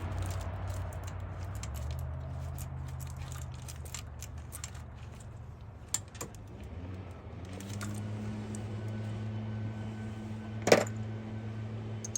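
Socket and ratchet working on engine-bay bolts: scattered light metallic clicks and clinks, with a sharper metal clank about eleven seconds in, over a low steady hum.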